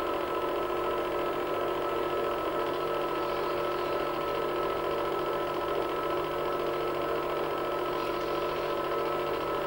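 Home-movie film projector running: a steady mechanical whirr with several constant tones over it, unchanging throughout.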